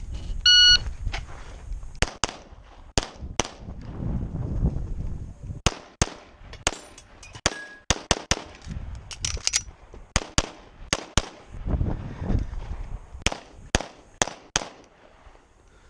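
A shot timer beeps once, then a 9mm Walther Q5 Match SF pistol fires about two dozen shots, in quick pairs and short strings with pauses between them, through a timed IDPA stage.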